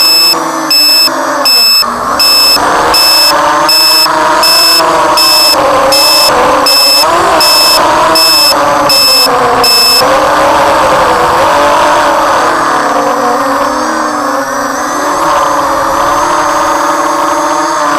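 ZMR250 FPV quadcopter's electric motors and propellers whining, the pitch rising and falling with throttle changes. A steady beep repeats about every three-quarters of a second and stops about ten seconds in.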